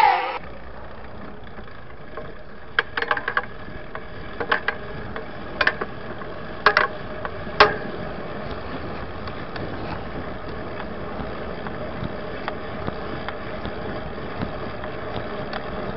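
Steady noise of city street traffic heard from a moving bicycle, with several short sharp sounds between about three and eight seconds in.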